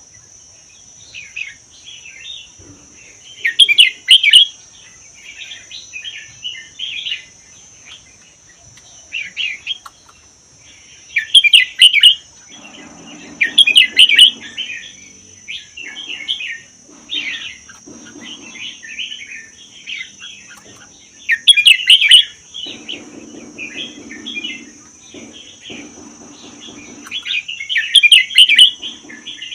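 Red-whiskered bulbul singing: a string of short, bright warbled phrases with louder outbursts every few seconds. A faint steady high-pitched tone runs underneath.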